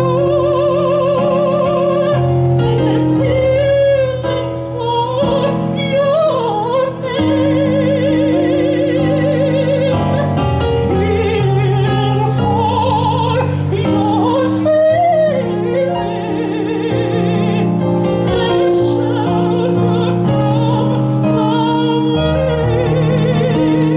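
A classical soprano singing in operatic style, with wide vibrato on long held notes, accompanied by sustained piano chords on an electronic keyboard.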